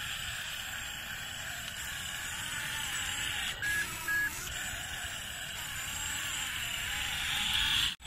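RC toy excavator's small electric motors and plastic gearboxes whirring steadily as it works in sand, with two short high beeps a little past the middle.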